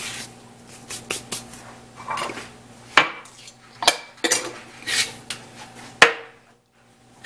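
Scattered clinks and knocks of kitchen utensils and containers being handled while the next spice is measured out, about eight sharp ones over several seconds.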